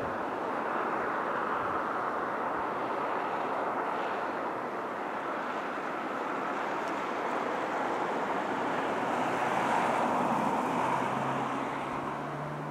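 A distant freight train approaching: a steady rushing noise, with a low hum from the train coming in near the end.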